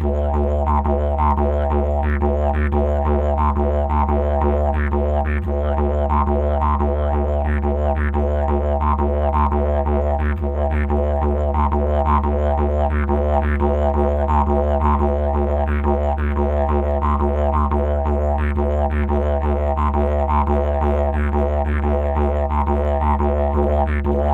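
Background music: a didgeridoo playing a continuous low drone, its overtones pulsing in a steady rhythm.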